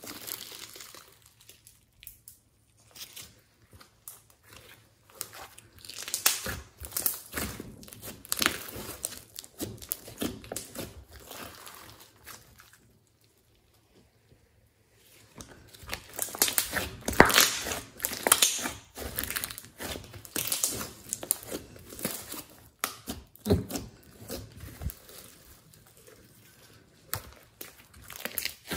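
Glossy slime being squeezed, folded and kneaded by hand: a stream of irregular wet crackles and clicks. It stops for about two seconds midway, while the slime is stretched out, then comes back thicker and louder.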